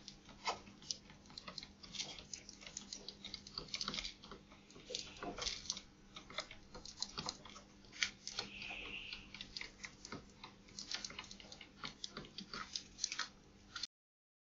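Sparrows pecking seed off a balcony ledge: a rapid, irregular run of small clicks and ticks, faint, over a steady low hum. The sound stops abruptly near the end.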